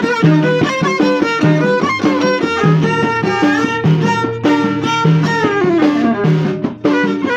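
Moroccan Middle Atlas folk music: a violin leading the melody over a steady hand-drum beat, with a long downward slide in the melody about six seconds in.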